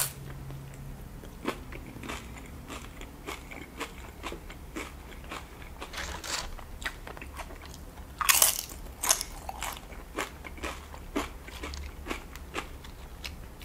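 Tortilla chips topped with cheese sauce being bitten and chewed, a run of crisp crunches throughout, loudest a little past the middle.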